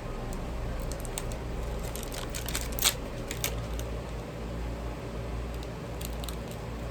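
Handling of Pokémon trading card packs and cards: scattered light clicks and crinkles, with one sharper click about three seconds in, over a steady low hum.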